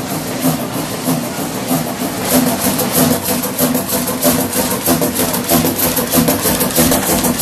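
Large old engine running with a steady rhythm of firing beats; the beats come faster and louder about two seconds in, as the engine picks up speed.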